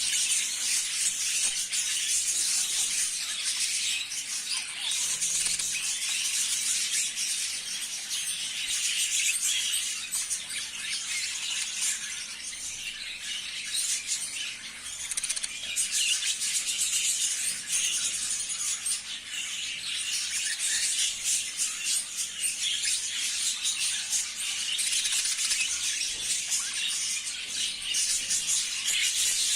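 A flock of budgerigars chattering and chirping without pause, many short high calls overlapping into a dense, steady twitter.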